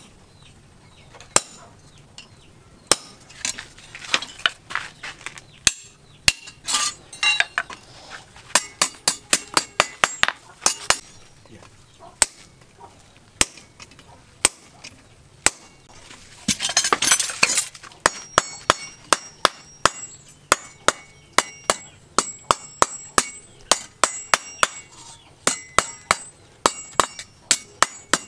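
Hand hammer striking hot steel held in tongs on a small steel anvil, with sharp ringing metallic blows. The blows come unevenly at first, then in a steady run of about three a second. There is a short rushing noise about two-thirds of the way through.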